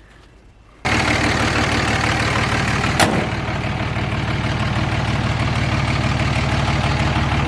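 Third-generation Cummins turbo-diesel starting about a second in and settling straight into a steady idle, breathing through new intercooler piping and a cold air intake. One sharp click sounds about two seconds after it fires.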